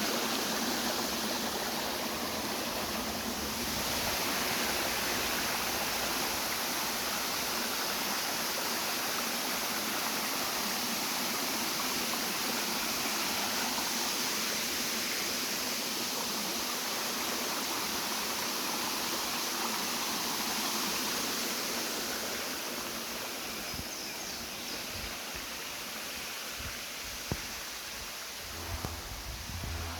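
Rushing water of a waterfall: a steady wash of noise that eases off a little in the last several seconds, with a sharp knock and a few low thumps near the end.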